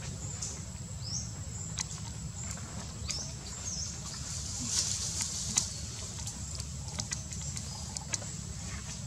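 Outdoor ambience: a steady low rumble and a steady thin high whine, with scattered faint clicks and a few short high chirps, about half a second, a second and three seconds in.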